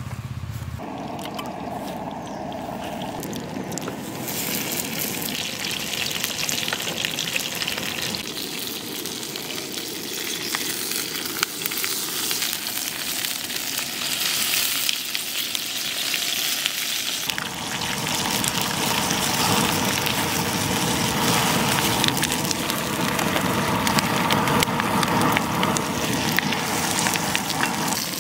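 Oil sizzling steadily in a frying pan around banana-leaf-wrapped mackerel parcels, growing louder a few seconds in, with a few light clicks.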